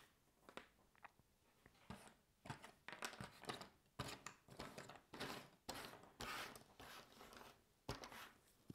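Cardboard jigsaw puzzle pieces being sifted and pushed around in a loose pile on a wooden table: soft rustles and clicks, sparse at first and busier from about two seconds in.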